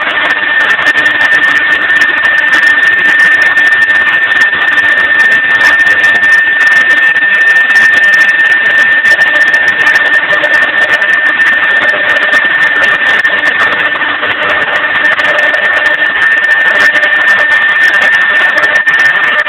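Mahecor KM 30 CNC router running: a steady high whine over a loud rushing noise, unbroken throughout.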